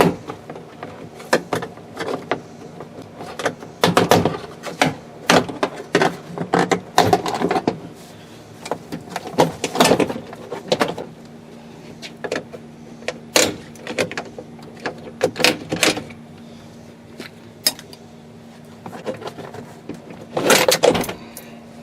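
Plastic interior door trim panel and its push-in retaining clips being handled and worked on a Chevy pickup door: irregular clicks, knocks and rattles, some in quick clusters, with a louder cluster near the end. A low steady hum runs underneath.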